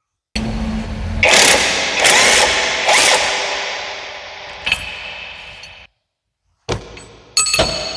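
Metal being struck: three loud clanks a little under a second apart, each ringing on and slowly dying away, then after a sudden break another ringing metallic strike near the end.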